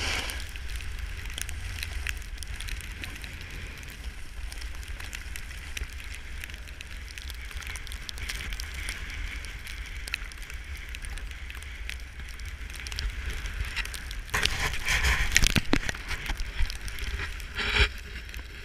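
Snowboard sliding and scraping over snow on a downhill run, a steady hiss with small crackles, under wind rumbling on the camera microphone. The scraping gets louder in a few bursts from about fourteen seconds in, and again near the end.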